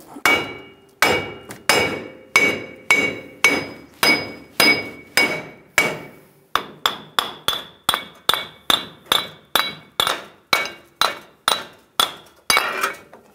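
Short-handled sledgehammer striking again and again on the back of a Ram 1500's front wheel hub and bearing assembly, driving the corrosion-stuck hub out of the steering knuckle. Blows come about every half second, each with a metallic ring, with a short pause about six seconds in; after it the blows come a little faster and the ring is higher.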